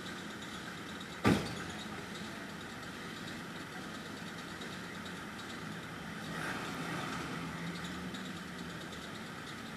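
A vehicle engine idling steadily, with a single sharp thump about a second in. The engine sound swells a little a few seconds later.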